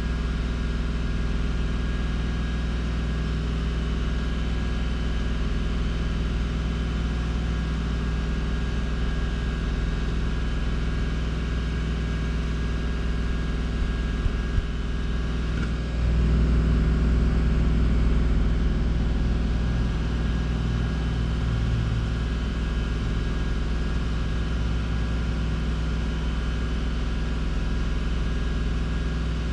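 Subaru Outback's flat-six engine idling steadily while warming up to open the thermostat and bleed the freshly refilled cooling system. About sixteen seconds in the hum steps up louder and deeper, easing off over the next several seconds.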